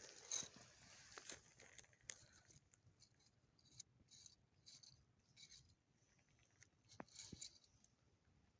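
Near silence broken by scattered faint clicks and light rustling, a little busier near the start and again about seven seconds in.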